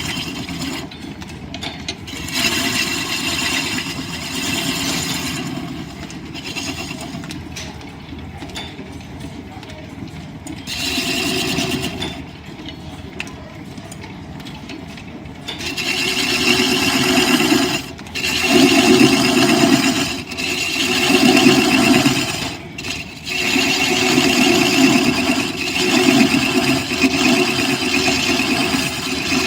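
Wood lathe driven by an overhead line shaft, running while a turning tool cuts the spinning wood in spells. About halfway through, the cutting gets louder, in runs of a couple of seconds with short breaks between them.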